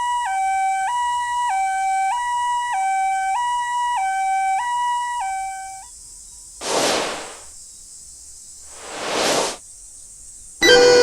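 Japanese ambulance siren sounding its two-tone high-low "pee-poh" pattern, alternating steadily about every half second and stopping about six seconds in. Two short whooshes follow, and near the end loud chiming music starts.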